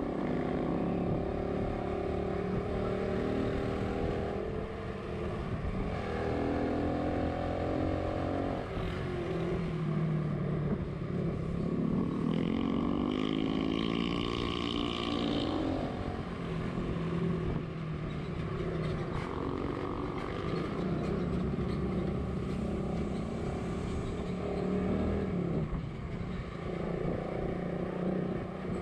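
Motorcycle engine running on the move, its pitch shifting up and down with throttle and gear changes, with a louder rising-then-falling swell about halfway through.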